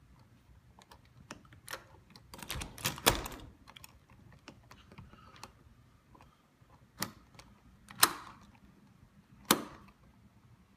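Sharp clicks and knocks of metal lock hardware and a screwdriver as the mounting screws are loosened: a run of quick clicks about two to three seconds in, then three single sharp knocks spaced a second or so apart.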